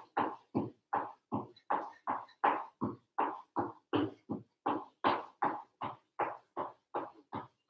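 Shoes thudding on timber floorboards while jogging on the spot: a steady beat of about two and a half footfalls a second.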